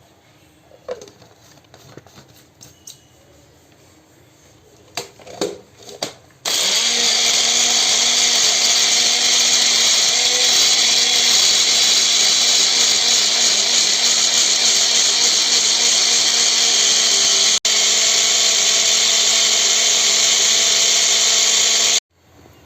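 A few light clicks and knocks, then an electric mixer grinder (mixie) starts and runs steadily and loud for about fifteen seconds, grinding cucumber, ginger, pepper and mint with water into juice. It cuts off abruptly near the end.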